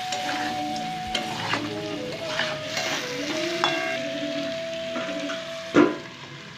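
Chicken pieces frying and sizzling in a steel kadai while a metal spatula scrapes and stirs them. Near the end a steel plate is set over the pan as a lid with one loud clank, and the sizzling turns quieter under it.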